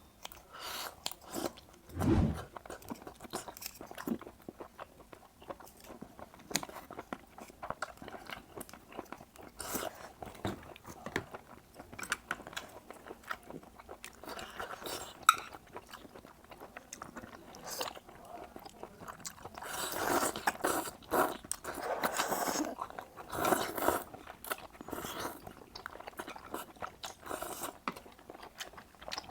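A person chewing and biting octopus close to the microphone: many short, irregular mouth clicks, thickening into a denser stretch about twenty seconds in.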